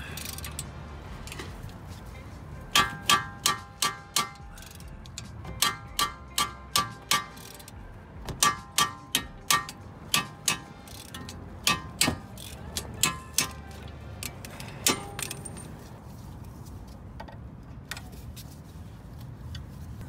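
A hammer striking a steel punch or bolt to drive a seized strut bolt out of a car's front steering knuckle, metal on metal. The blows come in four or five bursts of quick strikes, each with a short metallic ring, ending in a single blow.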